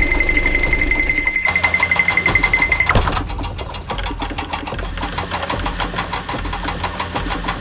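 A high, rapidly pulsing tone for about the first three seconds over a mechanical hum, then a fast, even clatter of a small motor-driven machine.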